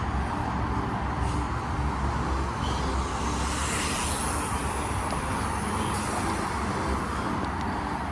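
Steady road traffic noise, a continuous rumble of tyres and engines, with one vehicle passing by more loudly about four seconds in.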